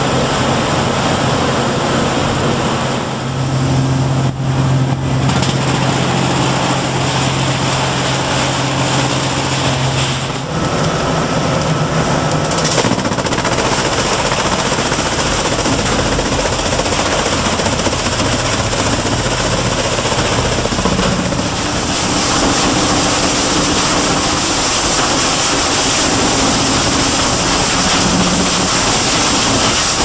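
Balemaster 1200 Series hogger and its cross-draft air-conveying system running in a corrugated box plant: a loud, steady machine noise with a low hum. The sound shifts in character partway through.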